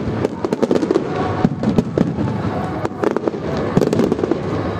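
Fireworks display: a rapid, irregular string of bangs and crackling bursts.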